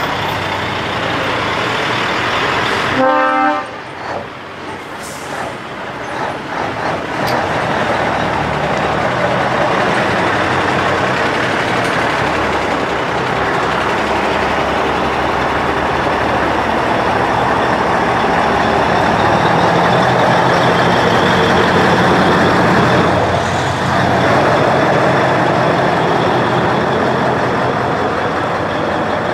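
Iveco Eurostar 520's V8 diesel running loudly through open side pipes as the truck drives slowly past. A short horn blast sounds about three seconds in.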